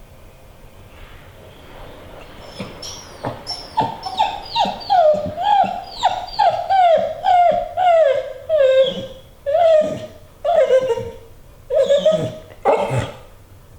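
American pit bull terrier whining in a rapid string of short, high, falling whines, about two a second, with two last whines near the end. The dog is whining to be let onto the treadmill.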